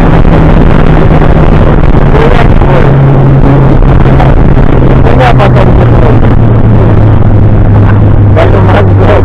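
Sea Pro 9.9 outboard motor running under way, pushing an inflatable boat, its note dropping in steps toward a lower pitch as it slows.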